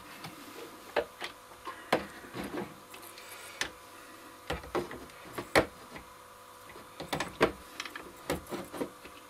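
Irregular light clicks and knocks of test gear and tools being handled on a workbench, with a faint steady tone underneath.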